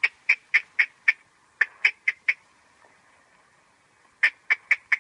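Handler's tongue clicks (clucks) urging a pony on: short, sharp clicks about four a second, in two runs of four or five, then a pause of about two seconds before another run starts near the end.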